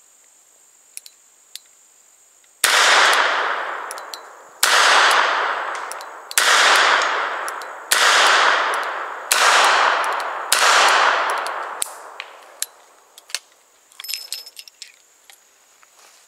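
Smith & Wesson Governor revolver firing six .45 Colt cowboy loads double action, one shot every one and a half to two seconds, each shot fading in a long echo. A few faint clicks follow the last shot.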